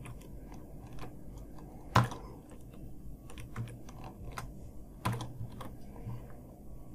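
Computer keyboard keystrokes, scattered and irregular, with one sharper keystroke about two seconds in and a quick few around five seconds.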